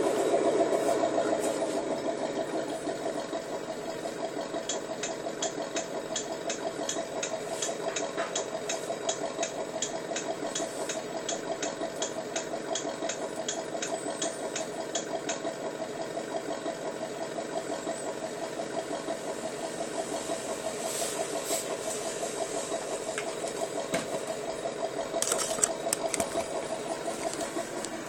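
Engine idling steadily after settling from a start, with a light even ticking of about two to three ticks a second for some ten seconds, and a couple of brief louder bursts near the end.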